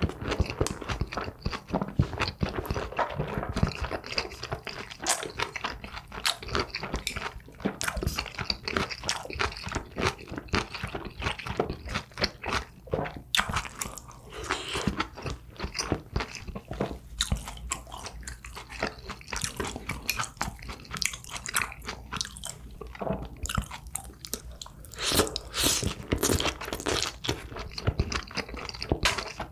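A person chewing and biting food close to the microphone: a run of irregular crunching and mouth clicks, with a louder cluster of bites about three-quarters of the way through.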